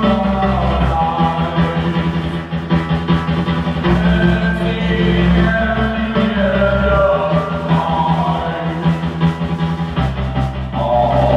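Live rock band playing a song, with singing over guitar, drums and held low bass notes that change every few seconds.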